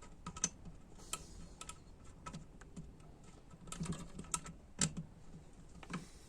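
Light, irregular clicks and taps of small metal parts being handled and fitted into an A604/41TE automatic transmission valve body, with a quicker cluster of clicks about four to five seconds in.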